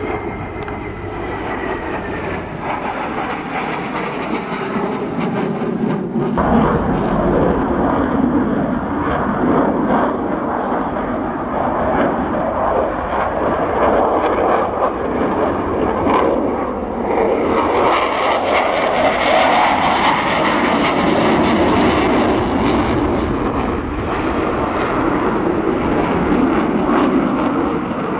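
Military jet fighter engines running throughout, with an abrupt change about six seconds in to the twin turbofans of a Dassault Rafale in display flight. About two-thirds through, the engine noise swells into a louder, hissier rush, then eases back.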